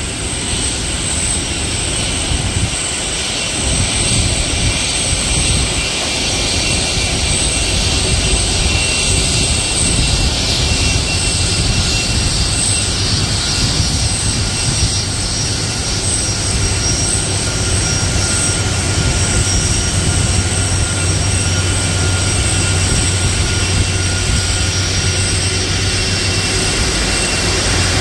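Jet engines of a Boeing 747-400 freighter taxiing in at low power: a steady high whine over a continuous rumble.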